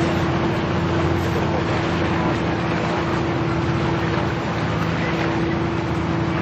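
A boat engine running with a steady drone: a constant low hum with one held tone, under an even rushing noise.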